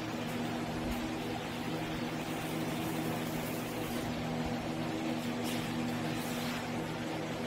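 Large drum-type shop fans running steadily, a constant hum with a few steady low tones under a broad airy hiss.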